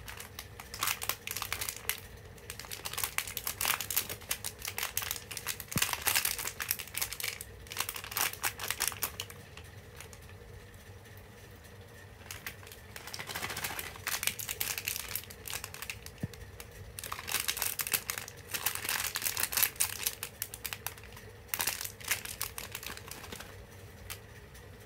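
Plastic candy-packet wrappers crinkling as they are pressed and handled, in several bursts with short quieter pauses between.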